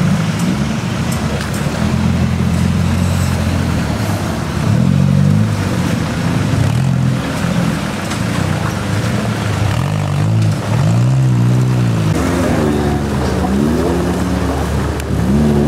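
Suzuki Samurai 4x4 engines revving hard through deep mud, the engine note rising and falling in repeated bursts. There is a quicker run of short revs in the second half.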